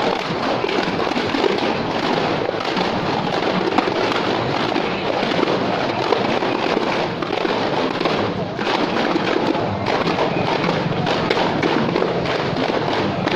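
Din of a marching street procession: a continuous, dense crackling clatter with voices mixed in, no single loud bang standing out.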